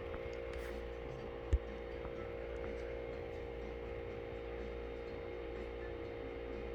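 Steady low hum with a few level tones, with a single sharp click about a second and a half in.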